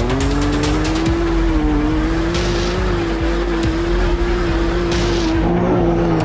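UTV sand car's engine running hard at high revs, its note holding and wavering slightly as it drives through dune sand, with the hiss of sand thrown up by paddle tires underneath.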